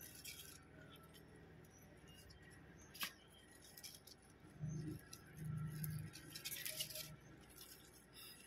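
Faint rustling and crackling of pak choy leaves and stems being handled and pulled in a planter of potting soil, with a sharp click about three seconds in.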